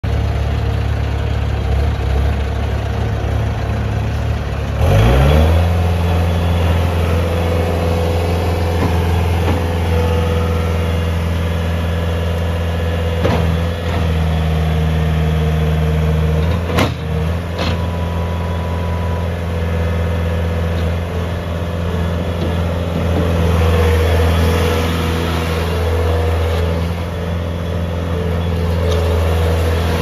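2010 Bobcat S220 skid steer loader's diesel engine idling, then revving up about five seconds in and running at a steady higher speed as the machine drives and turns. A few sharp knocks come in the middle.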